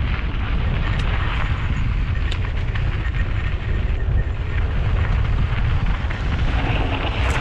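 Wind rumbling on a helmet camera's microphone while a mountain bike rolls fast down a dirt and gravel trail, with the gritty crunch of tyres on loose stones and a couple of sharp clicks from the bike about one and two and a half seconds in.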